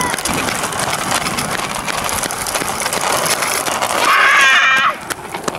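Small children's bikes rolling and rattling over asphalt, a steady noisy clatter with many small clicks. About four seconds in comes a loud high-pitched squeal lasting nearly a second.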